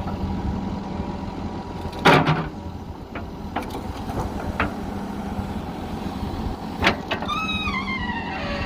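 Backhoe loader's diesel engine running steadily, with one loud knock about two seconds in and a few lighter knocks after it. Near the end a whine falls in pitch in small steps.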